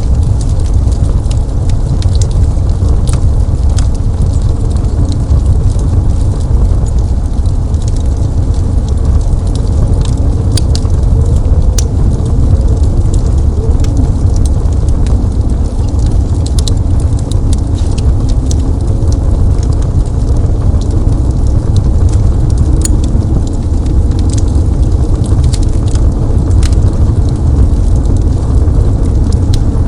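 Crackling wood fire in a fireplace: irregular sharp pops and snaps scattered throughout, over a steady deep low rumble.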